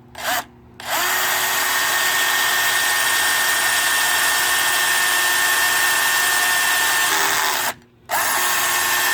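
Electric drill spinning a 1/8-inch glass-and-tile bit into ceramic tile: a short trigger blip, then a steady, even whine for about seven seconds, a brief stop near the end, and the drill starting again at the same pitch.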